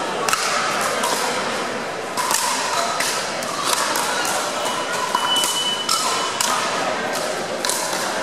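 Pickleball paddles striking a hollow plastic ball and the ball bouncing on a gym floor during a rally: repeated sharp pops, with the echo of a large hall.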